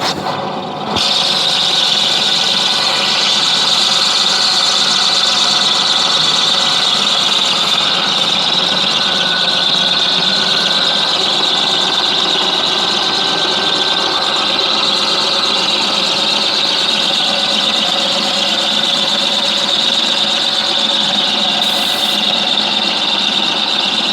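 HAAS CNC machine tool running with a steady, high squealing, rubbing noise: an abnormal noise from the machine. It dips briefly in the first second, then holds steady.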